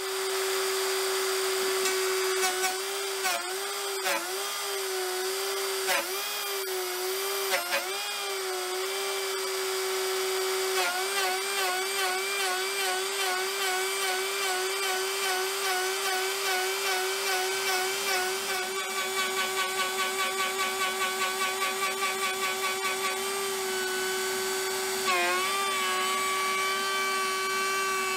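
A Shapeoko Pro CNC's router spins a large-diameter surfacing bit through a 1/4-inch MDF fence strip with a steady high whine. The pitch dips several times in the first few seconds as the bit takes a heavy bite. The whine then wavers and pulses rhythmically through the middle, with another short dip near the end.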